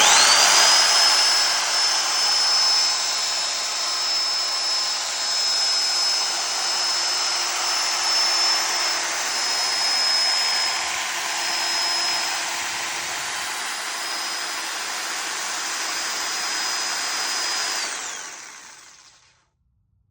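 Ryobi reciprocating saw switched on, running steadily with a high whine for about eighteen seconds, then winding down to a stop.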